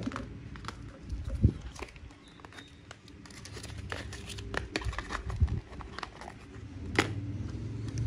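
A Zippo lighter and its box being handled: scattered small clicks and rustling, with a sharp click about a second and a half in and the loudest click near the end.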